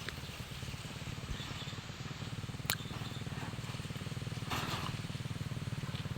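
Motor vehicle engine running steadily with an even low pulsing, and one sharp click a little before the middle.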